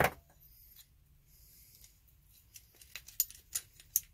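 Small metal parts of a Milwaukee M12 FUEL cordless ratchet being handled: a click at the start, then quiet, then about five short sharp clicks close together near the end as the ratchet head assembly is worked out of its metal housing.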